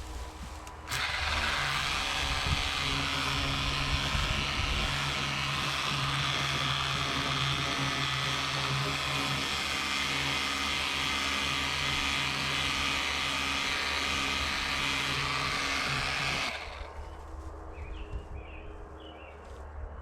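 Ryobi 18V EZClean 600 psi cordless pressure washer spraying: a steady motor-and-pump hum under the hiss of the water jet. It starts suddenly about a second in and cuts off abruptly a few seconds before the end.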